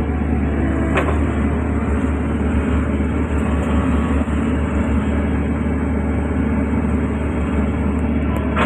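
Hydraulic excavator's diesel engine running steadily with a deep, continuous drone.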